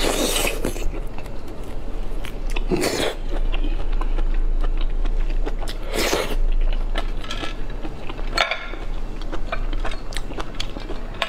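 Close-miked chewing and wet mouth sounds of eating raw lobster meat, with four louder wet bursts a few seconds apart and small clicks in between.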